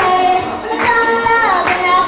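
A young girl singing into a microphone, holding notes that slide between pitches.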